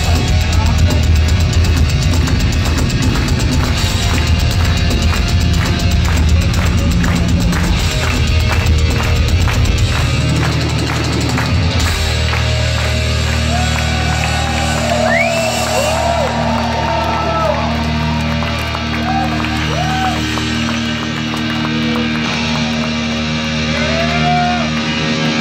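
Heavy metal band playing live through a club PA, loud and distorted, with pounding drums. About ten seconds in the drums stop and low held chords ring on, with short rising and falling squeals over them.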